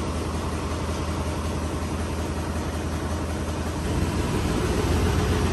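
Small forklift's engine idling steadily, picking up slightly about four seconds in.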